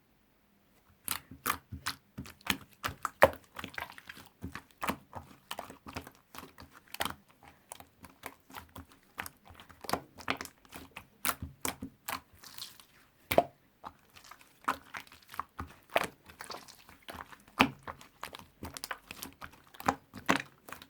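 Mint-coloured slime being squished and pressed by hand, giving a dense, irregular run of sharp clicks and pops. It starts about a second in.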